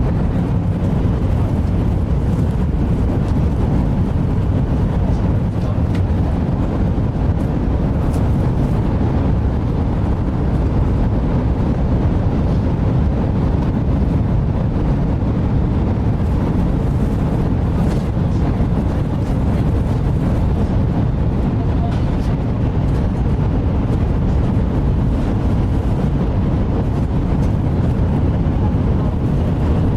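Steady low rumble of a Shinkansen bullet train heard from inside the passenger cabin, running smoothly with no change in level.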